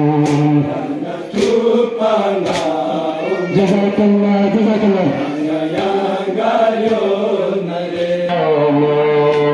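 Balti noha, a Shia Muharram lament, sung by a male reciter into a microphone with mourners chanting along. A sharp beat about once a second keeps time.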